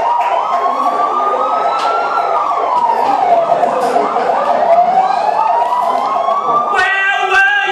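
Emergency-vehicle siren: a slow wail that rises, falls and rises again, with a faster repeating warble over it. A loud voice cuts in near the end.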